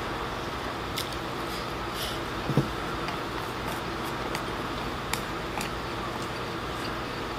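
Someone eating rice from a bowl with chopsticks: chewing and a few light clicks of the chopsticks against the bowl, over steady room noise, with one short low murmur about two and a half seconds in.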